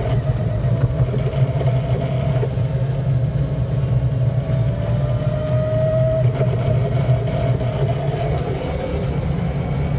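Aixam Mega Truck electric utility vehicle's drivetrain heard from inside the cab while driving: a steady, rough low drone with a clacking and grinding noise, over a faint whine that sags and rises again in pitch. The owner takes the clacking and grinding for a bad gearbox noise.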